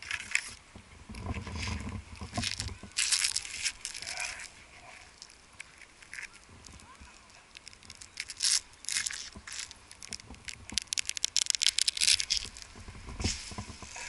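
Pine boughs and needles rustling and scraping against a tree climber, with rope and climbing hardware rattling in irregular scratchy bursts that grow busiest near the end.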